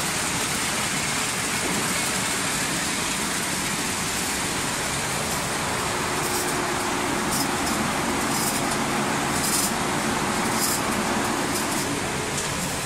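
Candy-making machinery running with a steady mechanical din. From about six seconds in a low steady hum joins it, along with several short high hisses.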